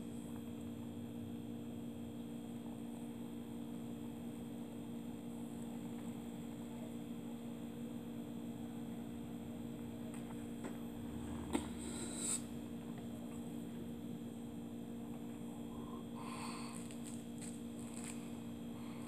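Steady electrical hum, with one sharp click a little past the middle and a short hiss right after it. Soft handling noise and small clicks near the end.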